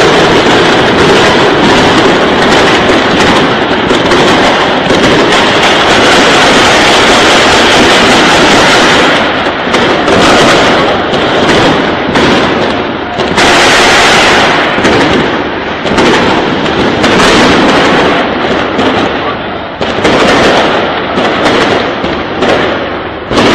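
Heavy gunfire: many shots overlapping in a dense, continuous, loud crackle that eases briefly a few times.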